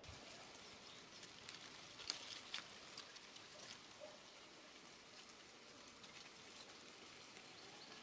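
Faint outdoor ambience: a quiet, even hiss with scattered light ticks and clicks, most of them about two to three seconds in.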